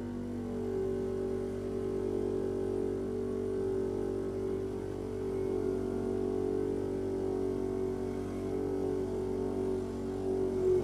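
A motor running steadily with a constant hum, its pitch holding.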